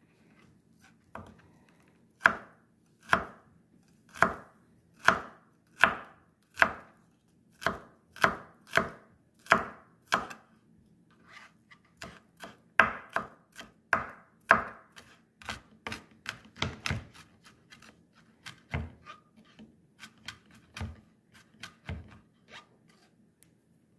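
Knife chopping food on a cutting board: firm, evenly spaced chops about one a second, then quicker, lighter, uneven chopping for the second half.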